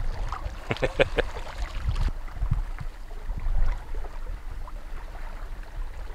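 Water lapping around a small boat on the move, over a steady low rumble of wind on the microphone, with a few sharp knocks about a second in.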